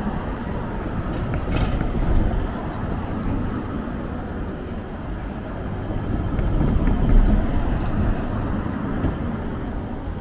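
City street ambience: a steady low traffic rumble that swells as a vehicle passes about seven seconds in.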